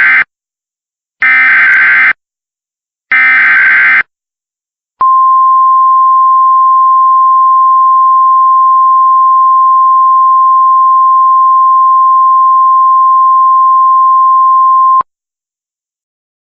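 Emergency Alert System tones. First the tail of one SAME digital header burst, then two more full bursts, each a second-long warbling data screech, a second apart. About a second later comes the steady single-pitch NWS attention tone, which runs ten seconds and cuts off sharply. Together they signal the start of an emergency alert.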